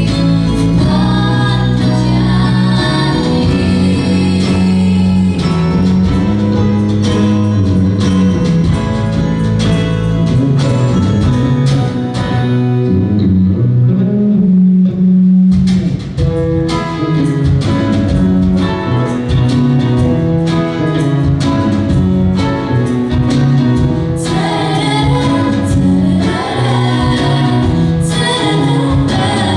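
A song: singing over guitar accompaniment. About halfway through it briefly thins out to a held low note, then the full sound comes back.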